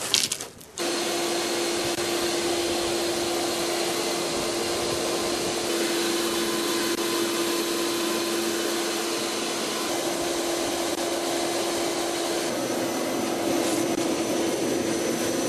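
A vacuum cleaner used as the forge's air blower switches on under a second in and runs steadily with a constant hum, forcing air up through the coal fire.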